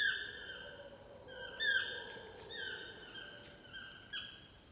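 Toucan calling in the jungle canopy: a run of short calls, each falling in pitch, repeated about every half second.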